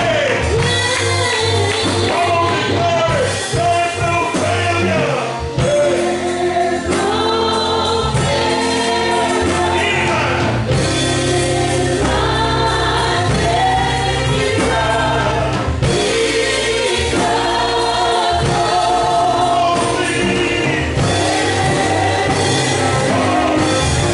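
Gospel music with a choir singing over a steady instrumental accompaniment.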